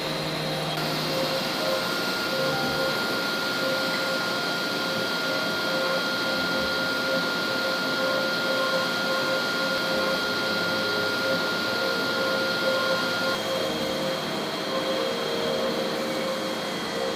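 Pipe-making machine running steadily: an even mechanical noise with several steady whining tones, one of which cuts off about three-quarters of the way through.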